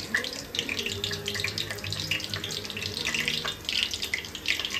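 Whole spices (bay leaves, cinnamon, cumin seeds, cardamom) sizzling in hot oil in an enamelled cast-iron pot: a steady hiss with many small crackles and pops. This is the tempering stage, where whole spices are fried in oil until they crackle.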